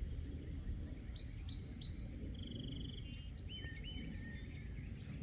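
Songbirds calling: a run of short, high chirps and a brief trill in the middle, over a steady low background rumble.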